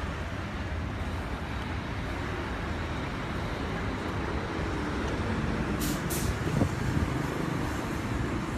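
Street traffic noise: a steady low rumble of passing vehicles, with a couple of short sharp hisses about six seconds in.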